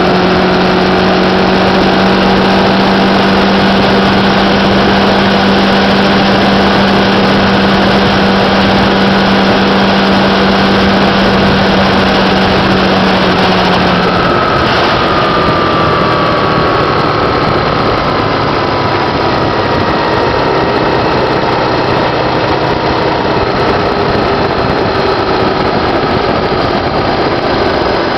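Sport motorcycle riding at highway speed, its engine holding a steady note under a loud rush of wind over the microphone. About halfway through the throttle is rolled off and the engine note falls slowly as the bike slows.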